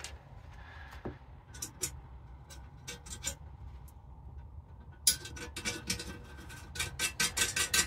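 Small metal parts of a homemade spinner target clicking and scraping as the metal rod and spinner paddles are fitted together. Scattered clicks at first, then a quick run of clicking and scraping from about five seconds in.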